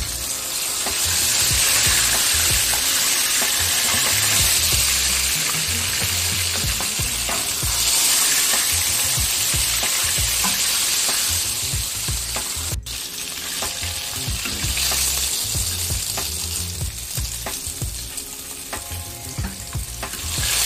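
A whole flour-dusted croaker fish shallow-frying in hot vegetable oil in a frying pan: a steady crackling sizzle. The sizzle swells and fades several times as the pan is tilted to shift the hot oil between the head and the tail, so every part of the fish gets heat and oil.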